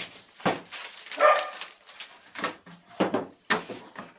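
A hard plastic carrying case being handled and opened: a series of sharp clicks and knocks from its latches and lid. About a second in comes one short, loud, pitched yelp.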